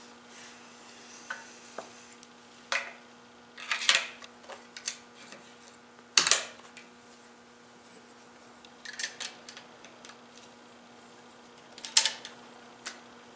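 Metal parts of a .22 rifle and its quick-attach sling hardware clicking and knocking as the rifle is reassembled and the sling fitted: scattered sharp clicks, the loudest about six seconds in. A steady low electrical hum runs underneath.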